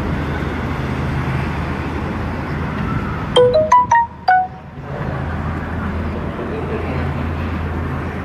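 Steady street traffic noise, broken about three seconds in by a short electronic jingle of five quick notes at different pitches. The street noise drops out while the jingle plays.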